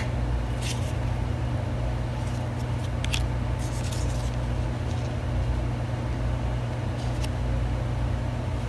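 Steady low hum with a few brief soft rustles and clicks of paper and plastic as an album is handled.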